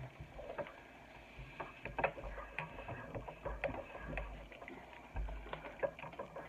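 A spoon clinking against a mug in quick, irregular taps as hot chocolate powder is stirred into hot water, with low bumps from handling the mug.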